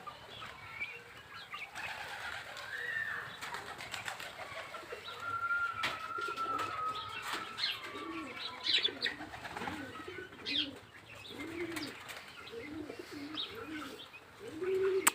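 Pigeons cooing in a run of low, repeated coos, with small birds chirping over them.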